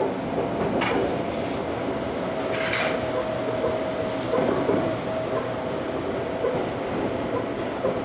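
Inside an Ohmi Railway electric train running along the track: a steady rumble of wheels on rail, with a thin, steady high tone through most of it. There are two short hisses, about one and three seconds in.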